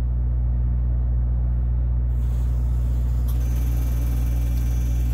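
Trailer refrigeration unit's diesel engine running with a steady low rumble. About three seconds in, a faint click is heard and a thin high whine joins.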